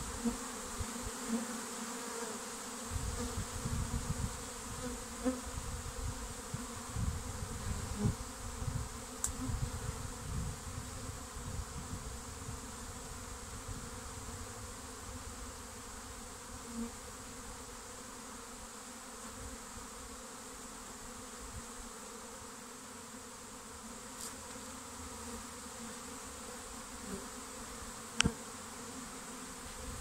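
A honeybee swarm buzzing steadily as bees fly around their cluster on a tree branch. Low buffeting comes and goes in the first half, and a single sharp click sounds near the end.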